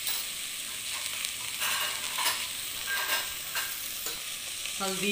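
Chopped vegetables sizzling in coconut oil in a stainless steel pot, a steady frying hiss, with a metal spoon clinking and scraping against the pot a few times as they are stirred.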